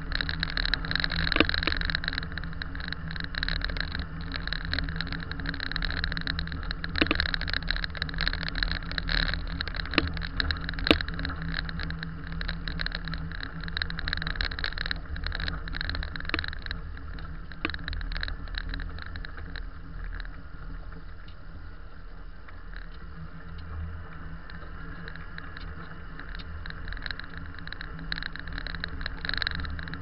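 A car driving on a snow-packed road, heard from inside the cabin: steady engine and tyre noise, with a few sharp knocks or rattles, as over bumps.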